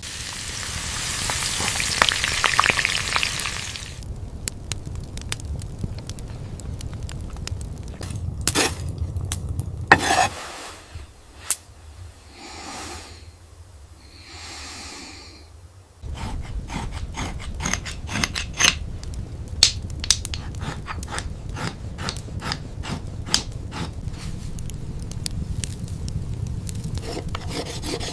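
Sizzling and crackling, like food cooking over an open fire. A loud hiss in the first few seconds gives way to scattered sharp crackles. A quieter stretch in the middle holds a few evenly spaced soft swishes, then the crackling turns dense again.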